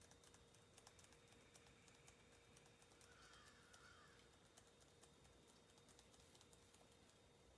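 Near silence with faint, irregular light ticks from a small brush dabbing black onto a glitter-coated tumbler.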